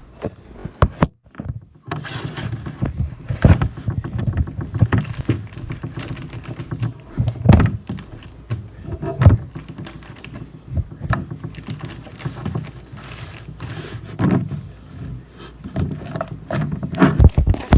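Irregular thunks, knocks and rustling handling noise close to the microphone, some sharp and loud, scattered unevenly with no rhythm.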